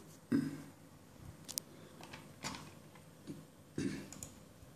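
A few scattered short clicks and soft knocks over low room hiss.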